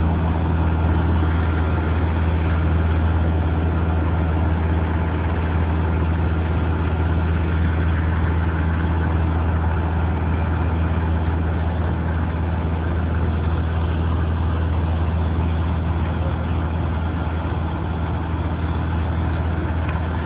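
Heavy engine of asphalt road-paving machinery running steadily, a deep even hum that does not change.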